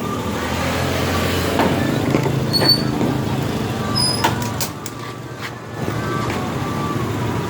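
A motor vehicle's engine rumble going by, swelling over the first few seconds and easing about five seconds in, with a few sharp clicks in the middle from screws and metal casing parts being handled.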